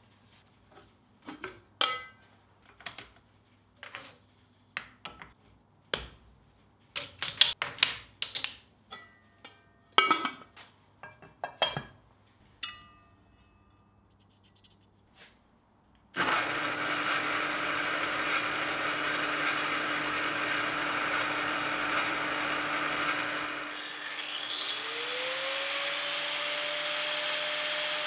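A series of sharp metallic clinks and knocks as parts of an old drill press and a steel disc are handled. About halfway through, the drill press motor starts and runs steadily, spinning the disc. Near the end, an angle grinder spins up with a rising whine and settles into a steady run.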